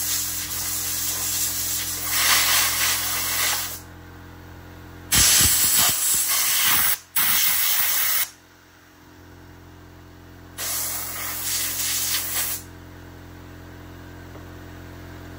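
Compressed-air blow gun hissing in three long blasts while dirt is blown out of a chainsaw. The first blast is already going and stops about four seconds in, the middle one is broken by a brief cut-off, and the last is shorter. A steady low hum runs underneath between the blasts.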